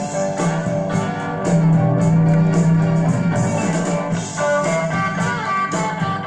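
Guitar music from a demonstration LP playing on the CCE SS-6880 3-in-1's turntable through its own amplifier and small speakers. The bass is strong, which the owner credits to the replaced power-supply capacitor.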